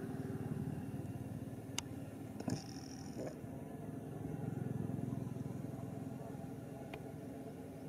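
A motor vehicle engine running with a steady low hum that swells louder around the middle and then eases off. A few sharp clicks sound over it.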